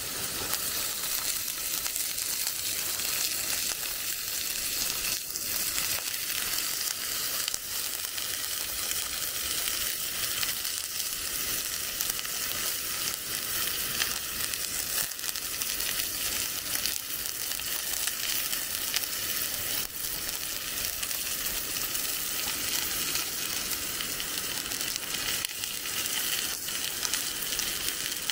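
Food sizzling in a hot cast-iron pan: a steady frying hiss with scattered small pops.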